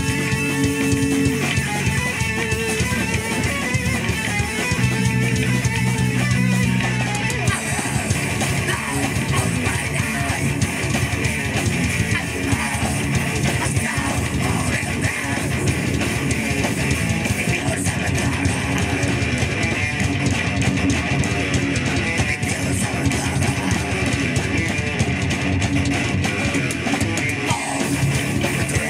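Live death/thrash metal band playing with distorted electric guitars, bass guitar and drum kit. Held chords ring for the first seven seconds or so, then the band breaks into fast, dense full-band playing.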